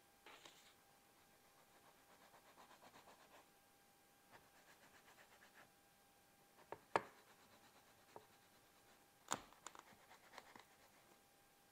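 Faint scraping and rubbing of a plastic dough scraper pressing through soft dough in a metal baking pan, in quick rhythmic strokes. A few sharp clicks come through, the loudest about seven seconds in and another a little after nine seconds.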